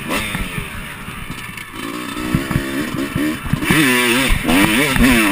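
Motocross dirt bike engine under way on a dirt track. Its pitch falls off the throttle at first and dips quieter, then climbs again about two seconds in and gets louder, with quick rises and falls in revs near the end as the rider works the throttle and gears.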